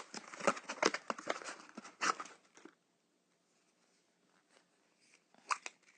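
Crinkling and clicking of a surprise-egg toy packet as it is torn open and handled, with quick irregular rustles that stop about two and a half seconds in, then a couple of faint clicks near the end.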